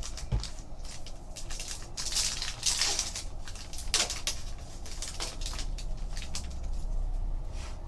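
Foil trading-card pack wrapper crinkling and tearing open, with cards rustling as they are handled. The crinkling comes in irregular bursts, busiest a couple of seconds in, with a sharp crackle about four seconds in.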